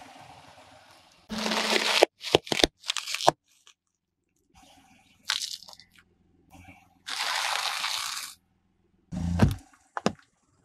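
Car tyre rolling over and crushing objects: a series of crunches and sharp cracks, with a run of quick cracks a couple of seconds in, a longer noisy crushing burst about seven seconds in, and a heavy crunch followed by a crack near the end.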